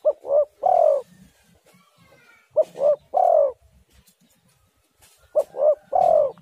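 Spotted dove cooing: three calls about two and a half seconds apart, each made of two short coos followed by a longer drawn-out coo.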